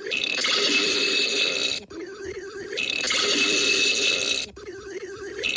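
Loud, harsh burping sound effect repeated in a loop, each loud burst lasting a bit under two seconds, separated by quieter wavering stretches.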